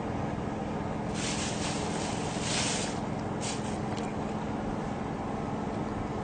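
A small engine running steadily with a constant low hum, with a few seconds of rushing hiss about a second in and a short burst of hiss near the middle.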